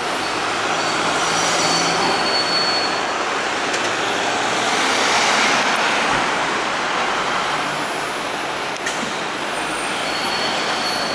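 Road traffic passing close by on a city street: a van and then a larger delivery vehicle drive past, with the noise swelling to its loudest about halfway through.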